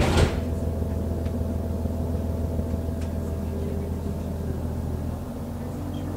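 Underfloor MTU 12V183 diesel engine of a VT 628.4 railcar running steadily with a low drone, heard from inside the train. A short, loud hiss comes right at the start, and a little after five seconds the engine drone drops in level.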